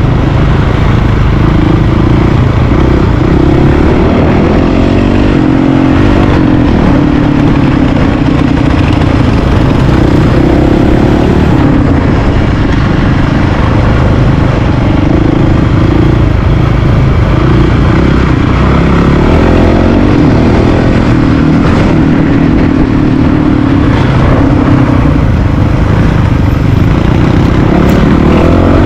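Honda CRF450RL's single-cylinder four-stroke engine, heard from on the bike while riding a dirt road. The revs rise and fall with the throttle.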